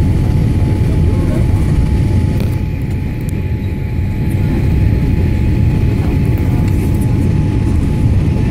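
Steady rumble of a jet airliner's engines and airflow heard inside the cabin on final approach, with a thin steady hum above it.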